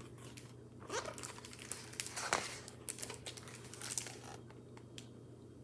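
A stiff page of a hardcover picture book being turned by hand: paper rustling and crinkling in several bursts between about one and four seconds in, with a few light clicks.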